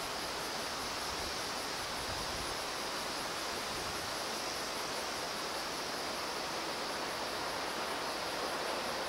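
Steady rush of flowing water from a mountain river, with a high, pulsing buzz above it.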